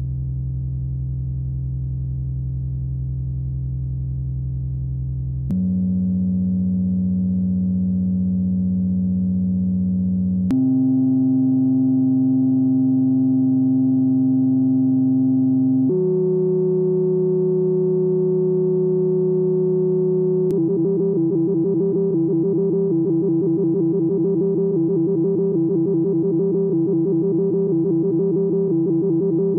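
Electronic synthesizer music: a sustained drone chord that steps up in pitch and gets a little louder about every five seconds, then turns into a fast, pulsing tone from about 20 seconds in.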